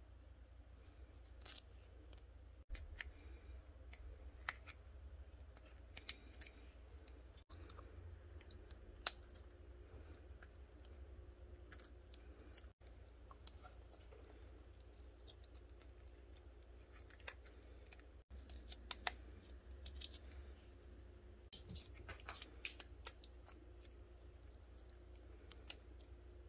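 Scattered faint crinkles and sharp clicks of clear plastic tape and a glitter-filled tape squishy being handled and squeezed by fingers, over a low steady hum.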